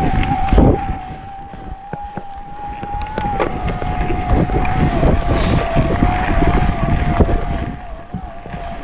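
Electric mountain bike motor whining at a steady pitch that wavers slightly under pedalling load, with wind buffeting the microphone and short knocks and rattles from the bike over the trail.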